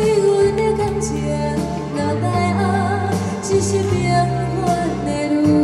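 A woman singing a song over a backing track, with sustained bass notes under the melody.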